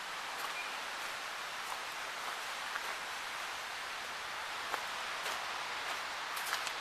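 Water falling over a landscaped waterfall into a pond: a steady splashing hiss with small drips and splashes here and there, a few near the end.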